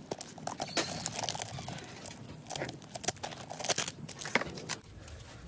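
Crinkling and crackling of a clear plastic cover being handled and pulled off the open end of a new spin-on oil filter by hands in disposable gloves, with many small irregular clicks.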